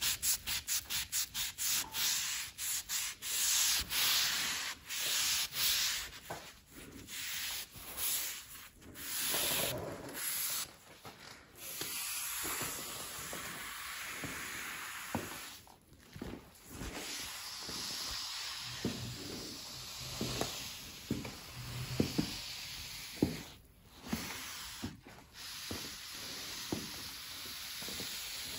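Microfibre cloth scrubbed hard over a quartz worktop with abrasive Bar Keepers Friend powder, giving a scratchy rubbing sound. It starts as quick, even back-and-forth strokes, about two or three a second, then after about twelve seconds turns into steadier, continuous scrubbing with a few short pauses.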